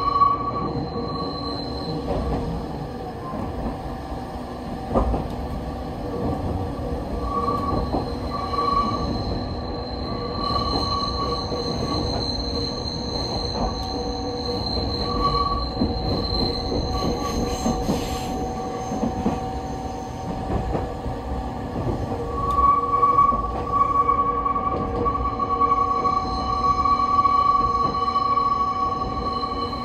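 Train wheels squealing against the rails on a sharp mountain curve, high sustained squeal tones that fade and return, strongest at the start and again in the last third, over the steady rumble of the train running, heard from inside the passenger car.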